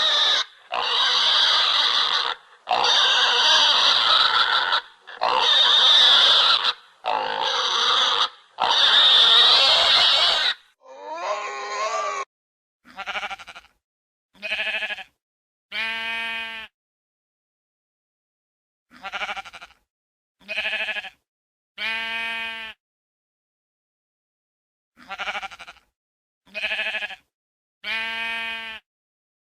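Pig squealing: a run of loud, harsh squeals, each lasting a second or two, for about the first ten seconds. Then comes a set of animal calls, two short and one longer and wavering, repeated three times about six seconds apart with silence between.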